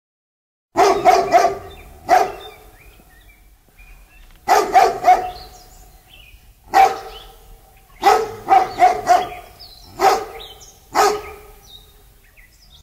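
A dog barking, starting about a second in: about fourteen sharp barks, several in quick runs of two or three, with short pauses between.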